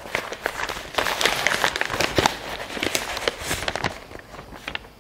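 Loose sheets of paper notes rustling and crinkling as they are handled, with many short crackles and clicks that thin out near the end.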